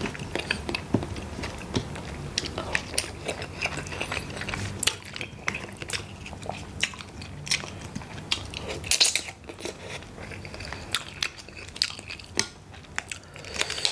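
Close-up eating sounds: chewing and biting on cooked mud crab and tiger prawn, with many short, sharp clicks and crunches of shell.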